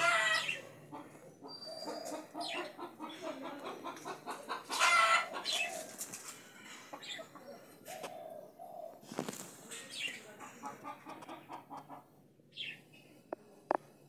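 Chickens clucking in runs of short repeated notes, with a few louder drawn-out calls, the loudest about five seconds in.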